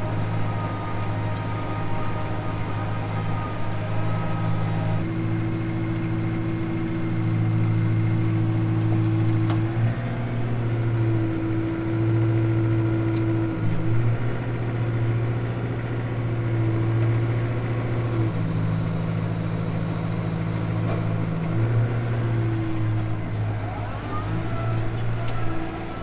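Tractor engine running steadily under load, pulling a PTO-driven Gehl 1475 round baler as it picks up and rolls hay, with a humming tone that comes and goes every few seconds.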